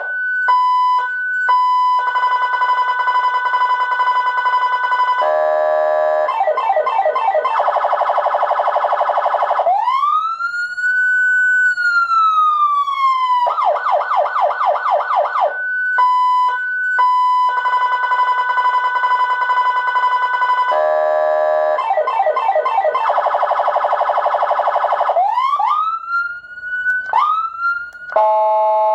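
SA920 200 W electronic siren amplifier cycling through its programmed tones over a siren speaker: steady and chopped tones, fast warbles, and one slow wail that rises and then falls. The run then repeats and ends with three short rising whoops.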